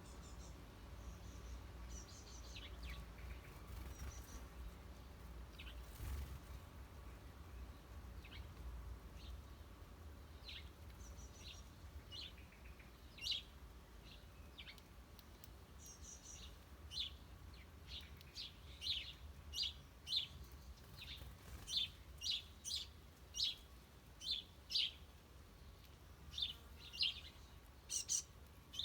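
Small songbirds chirping: short, high, falling chirps, scattered at first, then a steady run of loud repeated chirps about one or two a second through the second half, over a faint low rumble.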